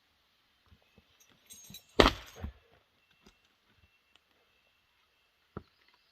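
Pieces of firewood knocking together as they are handled: one loud, sharp clack about two seconds in, a second knock just after it, and scattered lighter taps and thuds.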